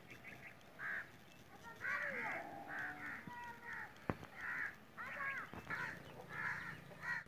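Crows cawing over and over, about nine short harsh caws, with thinner chirps and whistles from other birds in between and a couple of sharp clicks.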